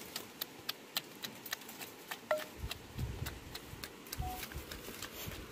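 Wooden pestle pounding tomatoes and chilies in an earthenware mortar: light, even knocks about three a second. A few duller low thumps come in the middle.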